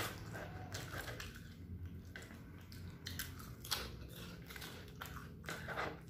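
A person chewing a mouthful of fried noodles and prawn crackers close to the microphone, with several short crisp crunches spread through it.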